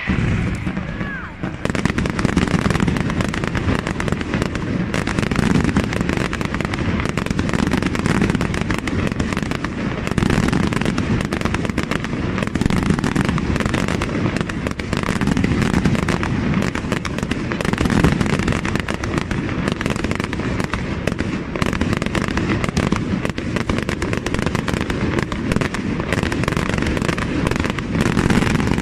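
Fireworks display in a rapid, continuous barrage: aerial shells bursting with bangs and dense crackling, overlapping without pause.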